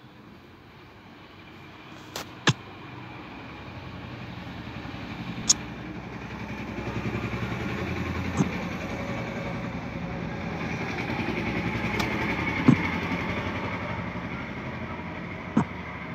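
Motor vehicle engine and road noise swelling and fading twice, with several sharp clicks.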